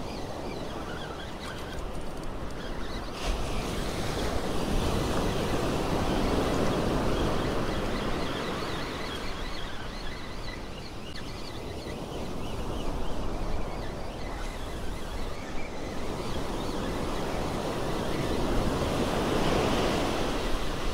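Ocean surf breaking and washing up the beach, swelling louder and easing off every few seconds, with some wind rumble on the microphone.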